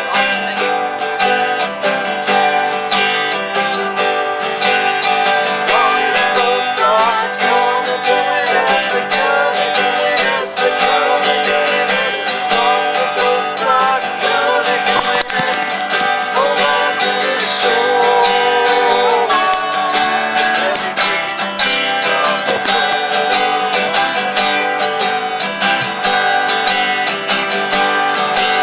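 Live acoustic music: an acoustic guitar strummed steadily, with a wavering melody line carried above the chords.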